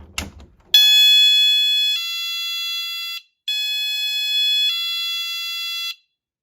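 Magnetic door alarm sensor in chime mode going off as the door is opened: a loud two-note electronic chime, sounded twice, each chime lasting a little over two seconds.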